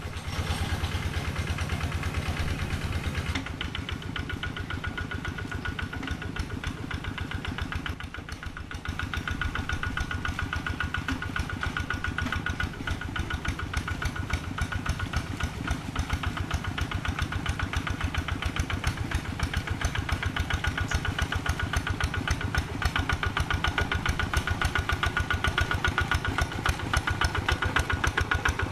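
Single-cylinder diesel engine of a Quick G3000 Zeva two-wheel hand tractor running steadily with a rapid, even chug of firing pulses. Its note shifts about three and a half seconds in, dips briefly near eight seconds, and then runs a little louder.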